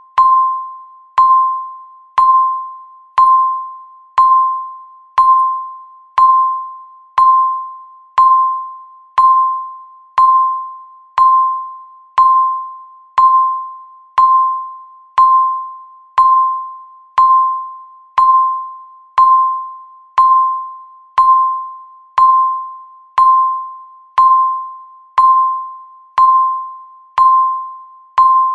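Countdown timer beeping once a second: a single clear tone that strikes sharply and fades quickly, repeating evenly, one beep for each second left.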